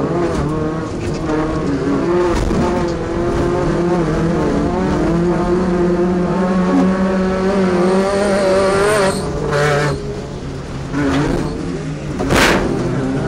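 Off-road race truck's engine running hard under load, its pitch wavering as the revs rise and fall. A rushing noise comes through about nine seconds in, and a sharp crack sounds about twelve seconds in.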